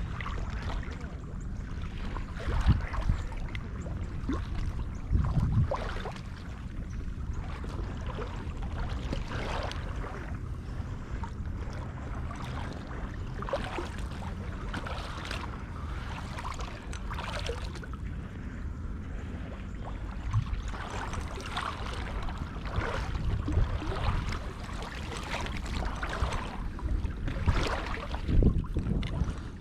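Water sloshing and splashing irregularly, as a hunter wades through flooded timber after a crippled duck, over a steady low hum.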